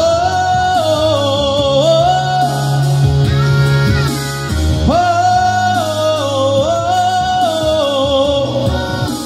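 A high wordless vocal run over a pop backing track with bass and beat: two long sung phrases, each opening on a held note that then bends and wavers downward, the second starting about halfway through.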